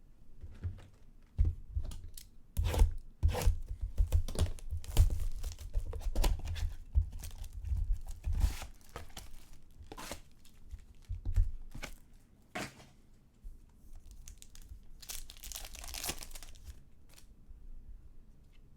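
A trading-card box and its packs being torn open by hand: repeated ripping and crinkling of wrappers with light handling knocks, busiest in the first two-thirds, then a shorter burst of crinkling near the end.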